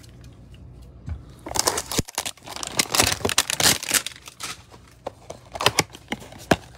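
A Panini Prizm football card hanger box being torn open by hand: irregular crinkling and tearing of its packaging, with a few sharp clicks near the end.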